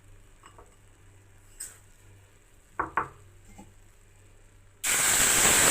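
A few clinks of a spoon against a pan, then near the end a sudden loud sizzle as water is poured into a pan of gram flour roasted in hot ghee.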